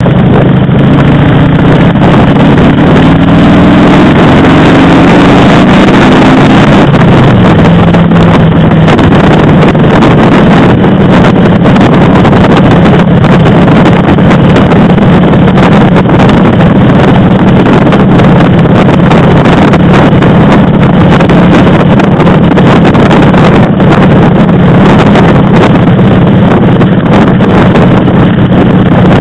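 Motorcycle engine running under way, loud, its pitch rising over the first several seconds and then holding fairly steady, with heavy wind rush on the microphone.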